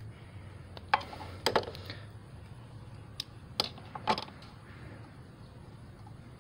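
A few small clicks and taps from fingers handling spliced wires and heat-shrink tubing, about five spread over the first four seconds, over a faint steady low hum.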